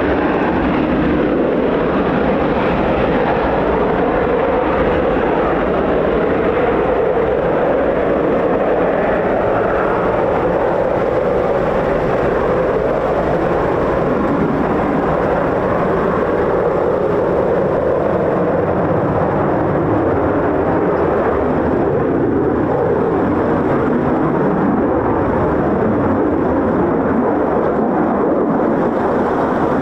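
Twin jet engines of an F-15 fighter at high power as it climbs and banks away from a low approach go-around: a loud, steady rushing jet noise.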